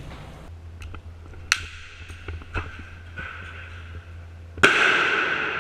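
Airsoft gunfire: two light sharp cracks, then a much louder one near the end, each leaving a ringing echo that dies away slowly in the large, empty warehouse.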